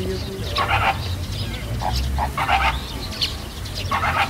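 A flock of flamingos calling, short calls from several birds coming in clusters about every second or so, over a steady low rumble.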